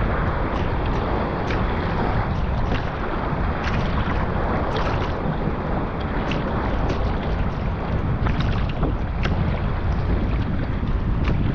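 Wind buffeting the microphone in a force 3–4 breeze, over water splashing and slapping around a sea kayak on the move, with short sharp splashes every second or so.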